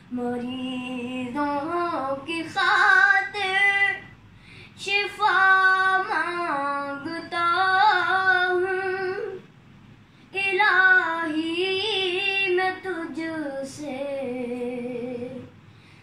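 A boy singing solo and unaccompanied in a high voice, with long held, bending notes in three phrases separated by short breath pauses.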